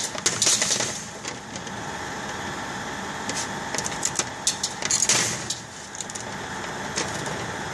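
Thin laser-cut wooden pieces clicking and rattling as they are pushed out of a cut grid and lifted off the cutter's metal bed. The loudest clatter comes about five seconds in. Under it runs the steady whir of the CO2 laser cutter's fans.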